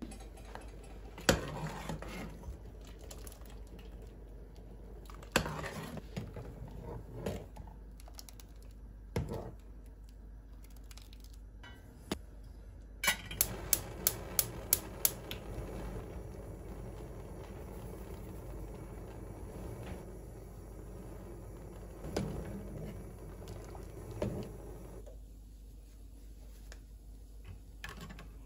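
A few knocks of cookware being set down. Then a gas hob's electric igniter clicks rapidly, about eight times, as the burner knob is turned. A steady hiss follows from the lit burner and the butter heating in the small pan.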